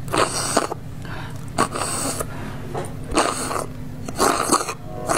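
Slurping through drinking straws stuck into large braised pork bones, sucking the fat out of them in about four half-second pulls.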